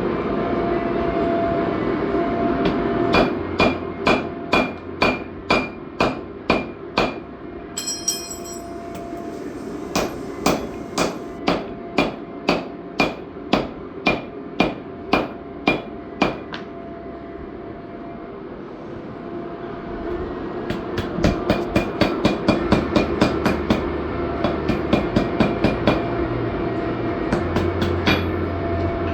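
Hammer blows on an anvil with a cutting tool, cutting metal: three runs of evenly spaced strikes, about two a second, then faster near the end, the early ones with a ringing tone, over a steady background hum.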